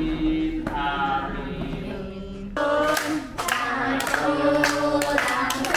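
A group of voices singing in unison with long held notes. About two and a half seconds in, it gives way to children singing along with hand claps.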